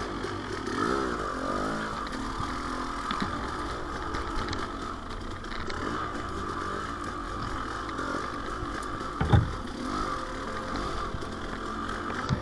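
KTM 300 XC-W two-stroke dirt bike engine revving up and down in short blips at first, then running at lower, uneven revs, with a single sharp knock about nine seconds in.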